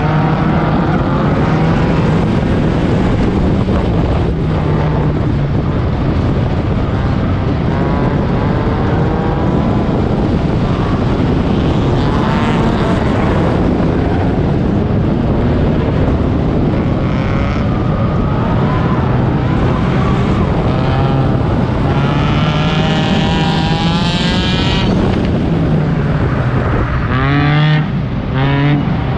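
Four-cylinder race car engine running hard under racing, its revs rising and falling through the corners, with several quick rev sweeps near the end.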